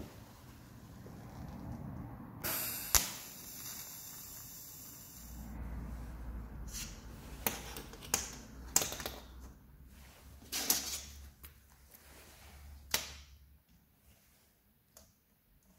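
A steady hiss for about three seconds, then irregular sharp metallic clicks as bicycle-chain pieces are handled and set down on a steel plate by gloved hands.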